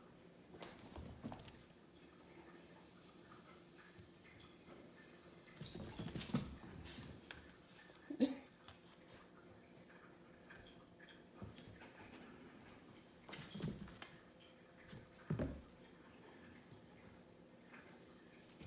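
Electronic bird chirping from a cat wand toy, sounding in a dozen or so short high-pitched bursts as the toy is waved, with a few soft knocks in between.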